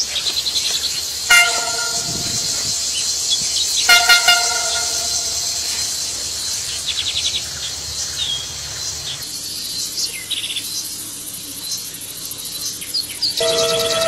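Train horn sounding in short blasts about a second and a half in and again around four seconds, then a long, loud horn blast starting near the end as the locomotive draws level. A steady high chorus of insects runs underneath.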